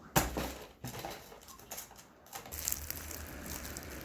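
A sharp knock and scrape as a kitten pounces at a small box on a tiled floor, then crackling and crunching of dry leaves as a kitten rolls and plays in them.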